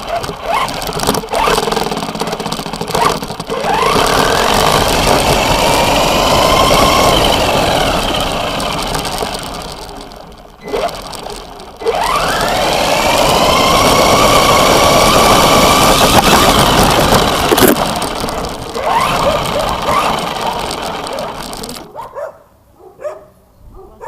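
High whine of the ZLL SG116 1:16 RC car's brushless motor and gear drivetrain, rising in pitch as the car speeds up, holding, then falling as it slows, twice over. Tyre and gravel noise from the road runs under it, picked up close by the camera mounted on the car.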